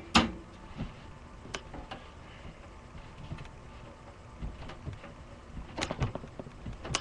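Scattered clicks and knocks of a screwdriver working at the motherboard screws in a desktop computer case: a sharp click just after the start, another about a second and a half in, and a small cluster of knocks near the end.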